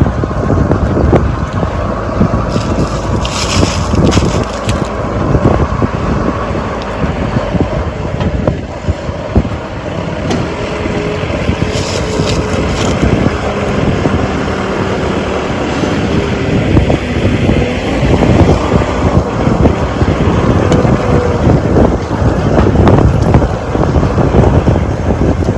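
Puris deep-frying in a wide pan of hot oil, the oil sizzling, with hissing that flares up briefly twice, with heavy wind buffeting the microphone throughout.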